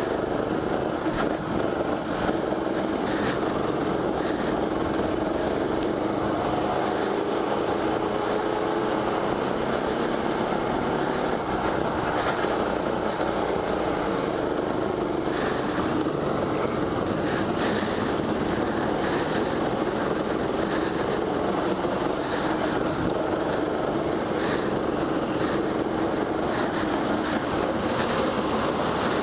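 Go-kart's motor running under way around the track: a steady drone with a faintly wavering pitch, heard from the onboard camera.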